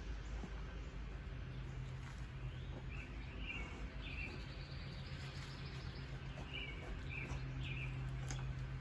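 Small birds chirping, a few short calls about three seconds in and again about seven seconds in, over a steady low hum.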